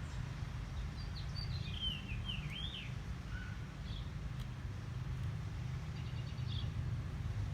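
A small bird chirping: a quick run of sweeping, up-and-down chirps about a second in, then a few short chirps near the end, over a steady low rumble.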